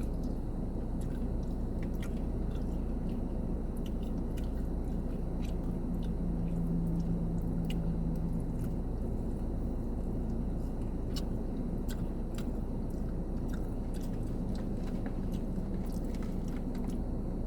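A person chewing food close to the microphone, with small mouth clicks scattered throughout, over a steady low hum.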